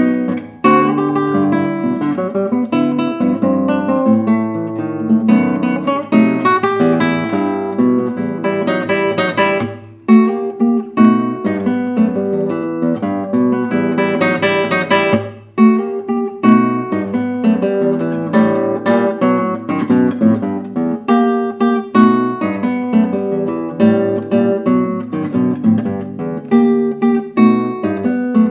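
Background music played on acoustic guitar, strummed and plucked, with a few short breaks between phrases.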